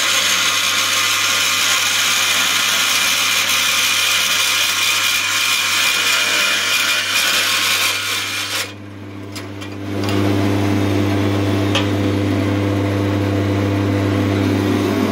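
Emco BS-3 bandsaw with a metal-cutting blade cutting through thin sheet metal, a steady hiss of the blade in the metal over the motor's hum. About eight and a half seconds in the cut finishes and the hiss stops; the saw then runs free, its motor hum louder and steady, with a single click near the end.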